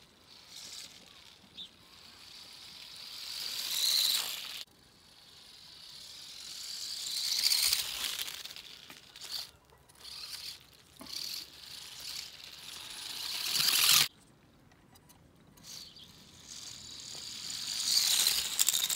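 Homemade popsicle-stick RC car's small DC motor whining and its wheels rattling over asphalt in several runs, each swelling over a few seconds; two of them cut off abruptly.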